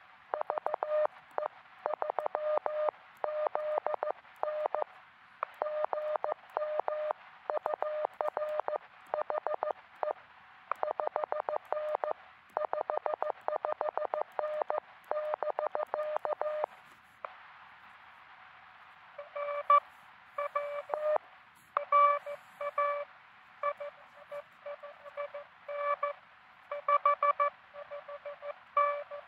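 Morse code on a truSDX QRP transceiver: a fast run of keyed beeps over faint receiver hiss. After a pause of about two seconds, a second, slower signal comes in with a buzzier tone and uneven loudness.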